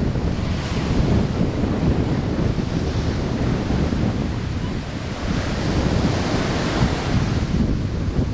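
Surf breaking and washing up a sandy shore, with wind buffeting the microphone in a low rumble. The hiss of the wash swells about a second in and again from about five to seven seconds.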